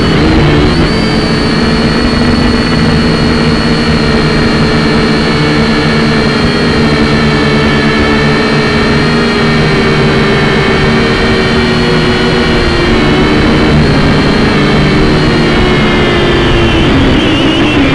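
Drone's motors and propellers whining steadily in flight, loud and close as heard from the drone itself, in several steady pitches that shift and waver near the end as it changes speed.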